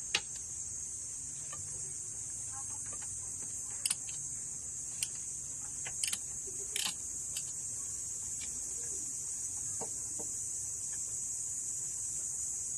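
About half a dozen scattered clinks and knocks of hand tools on metal engine parts during an engine teardown, over a steady high-pitched hiss, with chickens clucking in the background.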